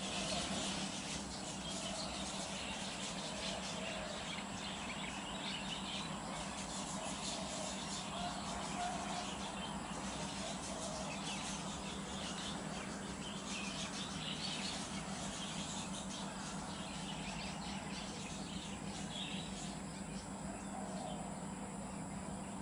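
Outdoor ambience of small birds chirping now and then over a steady insect drone, with no one speaking.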